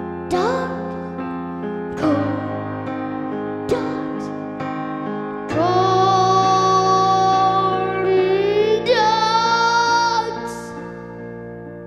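Keyboard-workstation song music: piano chords under a high wordless melody line, first a few short notes that slide up into pitch, then one long held note about halfway through, after which the music fades down.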